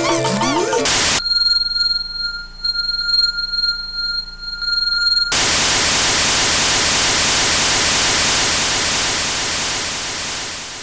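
Analog TV static: loud, even hiss from about five seconds in, easing slightly near the end. Before it, game music cuts off about a second in with a brief burst of noise, followed by a few seconds of a quiet, high, steady whine with faint clicks.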